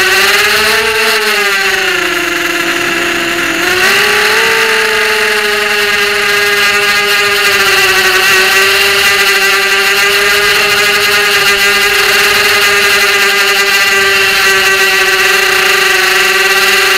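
ZMR250 racing quadcopter's brushless motors and propellers whining loudly, heard close up from the onboard camera. The pitch drops for a couple of seconds near the start as the throttle eases, climbs back about four seconds in, and then holds steady.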